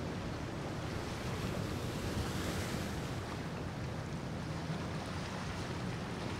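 A power boat's engines rumbling low as it runs past at speed, under the rush of water from its bow wake and wind buffeting the microphone. The rushing hiss swells briefly a little after two seconds in.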